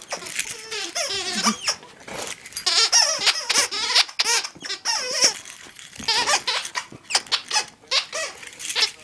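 Squeaky snake dog toy squeaking over and over in short, wavering squeaks.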